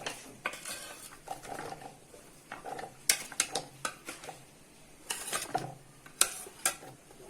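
A spoon clinking and scraping in a bowl as raw potato slices are added and tossed with dry spice powder, in irregular sharp knocks with soft rustling between them.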